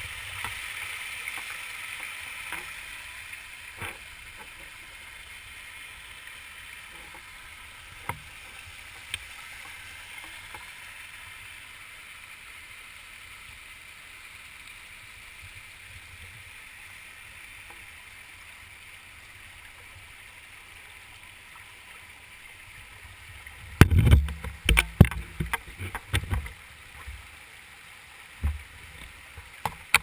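Small rocky forest stream running over stones, a steady rush of water. Near the end, a cluster of loud low thumps and knocks breaks in for a few seconds.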